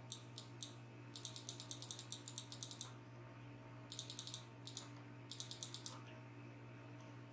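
Light, sharp clicks of computer input while editing: a few single clicks, then quick runs of about ten a second, the longest lasting nearly two seconds, over a steady low electrical hum.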